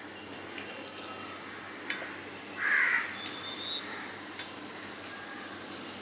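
Fingers mixing rice and fried fish roe on a steel plate, with a few faint clicks. About two and a half seconds in, a single short, loud call, followed briefly by a thin high tone.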